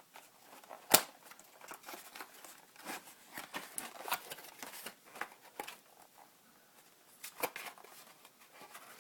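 Webcam packaging and its contents being handled: irregular rustling, crinkling and light clicks, with a sharp click about a second in and another about 7.5 seconds in.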